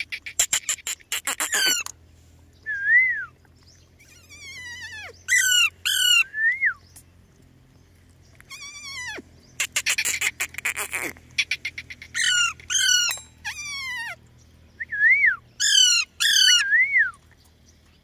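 Indian ringneck parakeets calling in bouts: runs of rapid harsh chatter, screeches that slide down in pitch, and short whistled notes that rise and fall.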